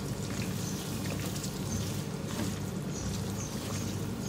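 Chicken karahi masala sizzling and crackling in oil in a metal karahi, with a wooden spatula stirring and scraping through it. The masala is fully cooked, with the oil separated out.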